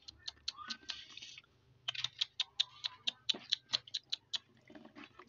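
Rapid, regular clicking or tapping, about five a second, in two runs broken by a short pause about a second and a half in. It comes from a hand eel-fishing rod being worked to jiggle a baited line in a paddy-bank burrow (urek-urek) to lure an eel to bite.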